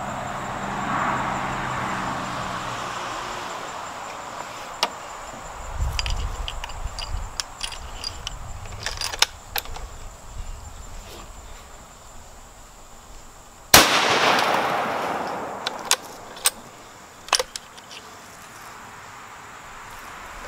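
A single shot from a .270 Winchester rifle firing a 130-grain Nosler Ballistic Tip handload, about two-thirds of the way in. It is a sharp crack that rings out for about a second. A few fainter sharp clicks come before and after it.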